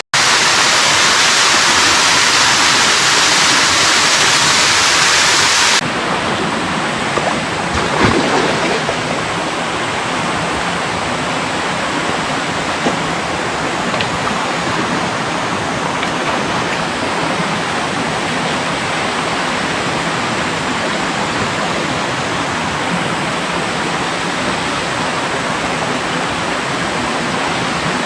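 Mountain stream rushing over rocks, a steady loud rush of water. About six seconds in it changes abruptly from a brighter, louder rush to a softer, duller one.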